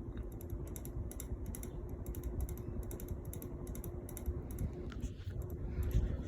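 Harbor Breeze Calera ceiling fan running on high: a steady motor hum over the rush of moving air, with a rapid, irregular run of light clicks throughout.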